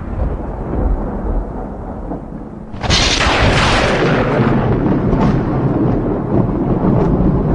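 Thunder: a low rumble, then a sharp, loud crack about three seconds in that rolls on as a long rumble.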